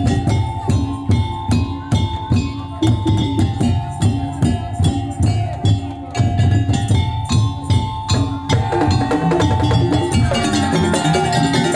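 Madurese tongtong (daul) music: wooden and bamboo percussion and drums beat out a steady rhythm under a sustained melodic line. About eight seconds in, the strokes give way to a busier melodic figure.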